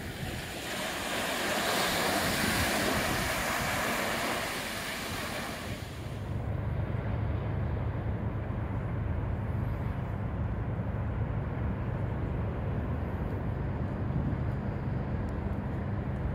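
Small waves washing up and foaming over a sandy beach, a loud even hiss of surf. About six seconds in, the surf cuts off abruptly and a steady low rumble takes over.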